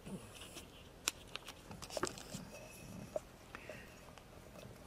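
Quiet handling noises at a table: a drinking glass being set down and a handheld microphone being picked up, heard as a few soft clicks and taps, about a second, two seconds and three seconds in, amid faint rustling.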